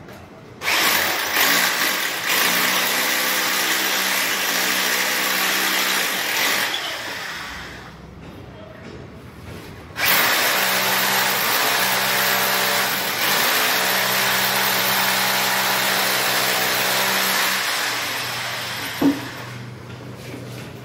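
Corded electric drill running in two long bursts of several seconds each, its bit held against the edge of a mirror frame, with a short pause between them. A single sharp click comes near the end.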